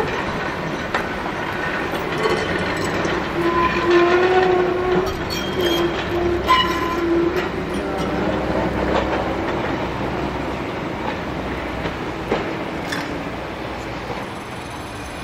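Heritage tram running along its rails: a steady rumble with clicks from the track, and a steady tone heard from about three to seven seconds in.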